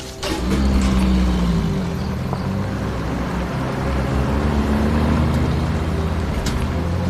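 Car engine starting about a quarter second in, then running steadily with a low rumble.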